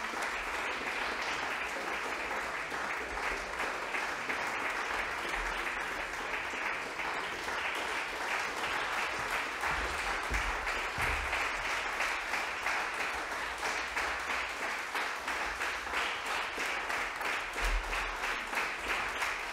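Concert hall audience applauding, the clapping settling into a regular rhythmic beat in the second half.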